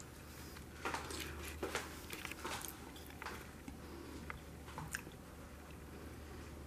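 Soft footsteps and handling noises from a handheld camera being walked across a carpeted room, a light thud or click roughly every second, over a steady low hum.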